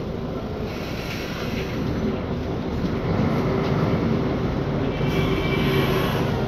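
Cabin noise of a Mercedes-Benz Conecto G articulated bus on the move, its rear OM457LA turbo diesel engine running under load, growing louder about two seconds in as the bus gathers speed. A faint high squeak comes in near the end.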